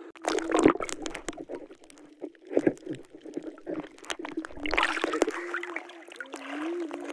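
Water splashing in three short bursts, with scattered clicks and knocks in between.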